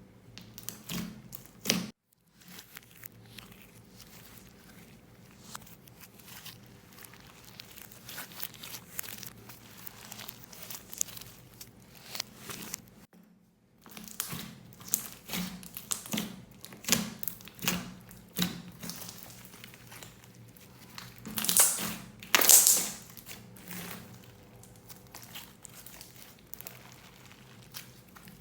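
Plastic piping bags crinkling and crackling as they are handled and squeezed, in a string of short sharp rustles. The loudest burst of rustling comes about three-quarters of the way through.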